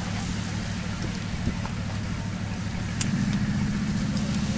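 Diesel engines of a military landing craft running steadily offshore, a low drone that gets louder about three seconds in, over a hiss of wind and surf.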